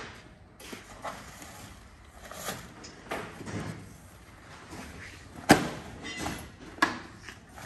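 Handling noise around a rooftop tent: rustling and scattered knocks as a man reaches into it and moves around it, with two sharp knocks about five and a half and seven seconds in.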